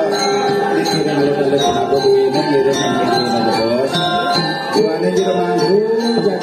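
Balinese gamelan ensemble playing, its bronze metallophones ringing in a dense, continuous texture of bell-like tones.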